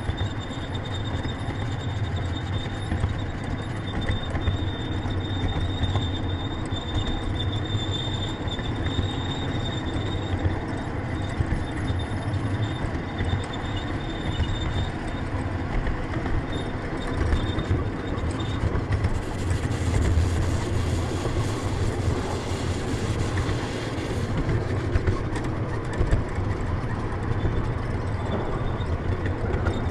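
Ride-on miniature railway train running along its track: a steady low rumble and rattle of the wheels and cars. A thin high squeal runs through the first third, and a hissing rush comes for a few seconds past the middle.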